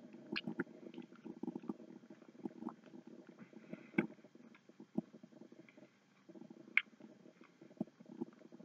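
A person quietly chewing a frosted Pop-Tart: soft mouth and chewing sounds with scattered small clicks, two of them sharper, about halfway through and again a little later.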